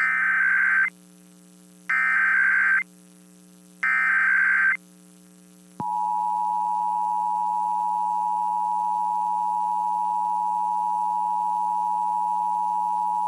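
Emergency Alert System header: three short screechy bursts of SAME data, each about a second long and a second apart, then a steady, loud attention tone that starts about six seconds in, marking the start of an EAS test. A faint steady hum runs underneath.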